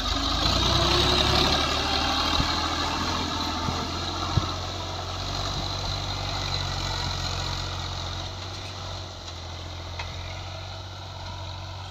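Fiat/New Holland 480 tractor's three-cylinder diesel engine running steadily under load as it pulls a nine-tine cultivator through dry clods, growing gradually fainter as it moves away. One sharp knock comes about four seconds in.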